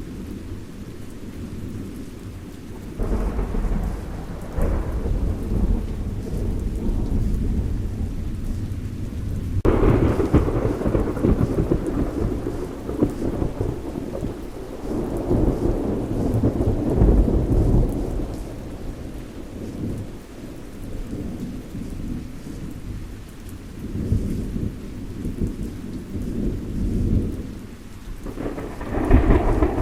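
Thunderstorm: steady rain under rolling thunder, with several long low rumbles; the loudest crack-and-roll starts about a third of the way in, and another rumble builds near the end.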